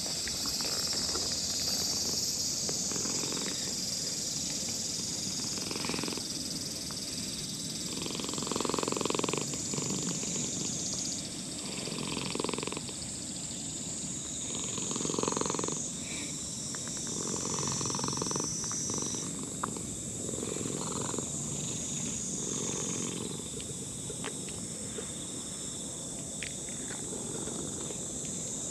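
Old orange-and-white cat purring steadily as it is stroked under the chin, the purr swelling and easing every few seconds; a purr of contentment at being petted.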